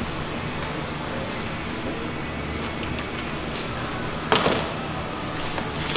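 Vinyl sheet being handled on a worktable over a steady low hum: one sharp knock about four seconds in, then rustling and rubbing.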